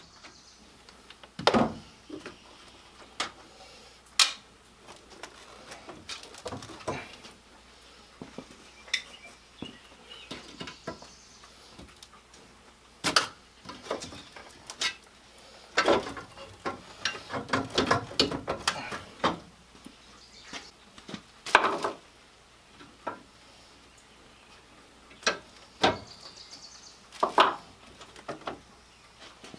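Hand tools and car parts clinking and knocking during work on a car's front end: scattered sharp metal clicks and clanks at uneven intervals, with a busier cluster of knocks about halfway through.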